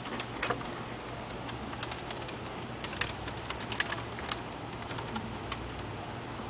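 Scattered light clicks and clinks from a hook hanger and its stacked weight plates as the load is steadied under a concrete test beam, over a steady low hum.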